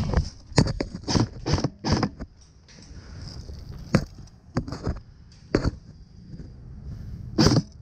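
Airsoft guns firing single shots: about ten sharp cracks at uneven intervals, several in the first two seconds, a few more in the middle and a last pair near the end, over a faint steady high hiss.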